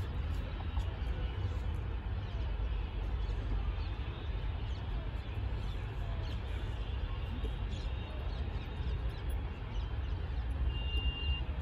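Open-air ambience: a steady low rumble under a faint crowd murmur, with birds chirping now and then. A short high steady note sounds near the end.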